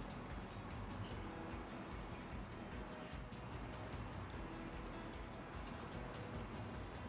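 An insect trilling on one steady high-pitched note, in long trills of about two seconds broken by short pauses.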